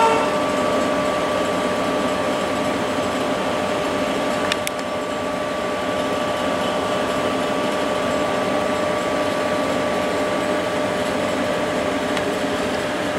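A small motor running steadily, a whirring with a constant whine.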